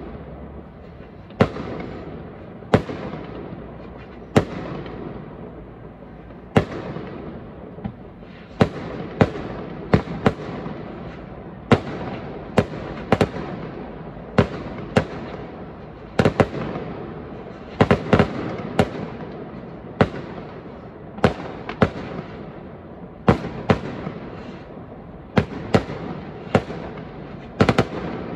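Fireworks display: aerial shells bursting in an irregular series, about one sharp bang a second and sometimes two in quick succession, each trailing off into a rolling echo.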